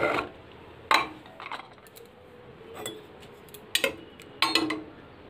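Metal ladle clinking against the inside of a pressure cooker as it stirs boiled hog plums: a few separate clinks, one about a second in and a cluster near the end.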